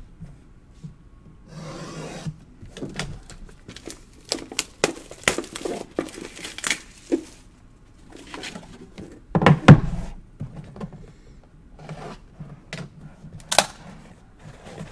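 Handling a sealed trading-card box on a table: its cardboard sleeve rubbing and scraping as it slides off, and the wooden box being opened, with scattered taps and knocks. One heavier thump comes nearly ten seconds in.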